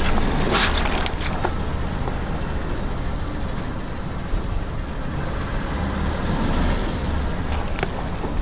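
Car engine running at low speed with a steady low rumble, and a few short crunches in the first second or so as an object is crushed under a tyre.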